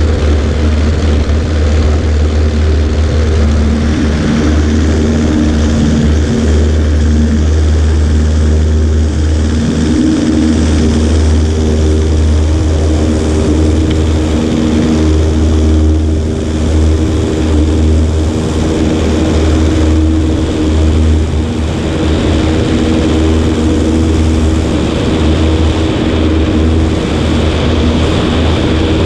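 Cessna 140A's piston engine and propeller running steadily, a loud, even drone.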